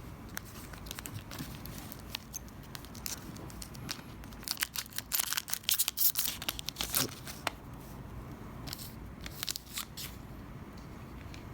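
Foil trading-card pack wrapper being torn open and crinkled, with cards handled: short crackles and light clicks that come thickest in the middle.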